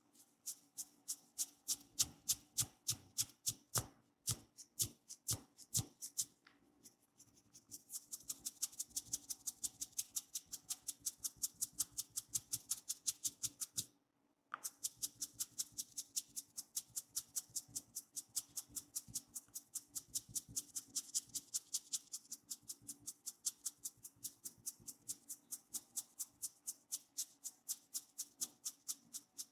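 Rapid rhythmic hand tapping of a head massage, about four sharp strikes a second, with a short pause about halfway through.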